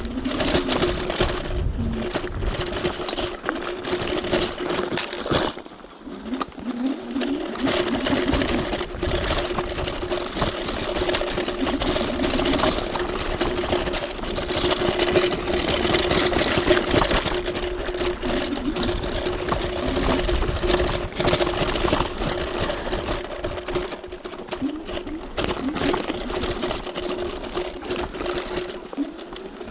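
TRBK-M2 electric hyperscooter's motor whining at a steady pitch under way, with wind noise and a constant clatter of small knocks over rough trail ground. The whine and the noise ease off briefly about six seconds in.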